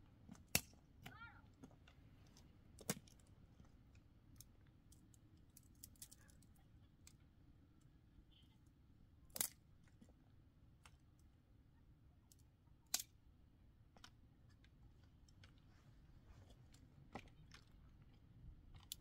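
Near silence with scattered small clicks and crackles over a low background rumble, broken by four sharper knocks spread across the span.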